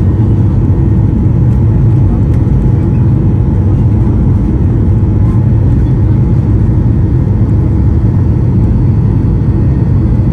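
Airliner cabin noise as the plane rolls along the runway: a loud, steady low rumble heard from inside the cabin.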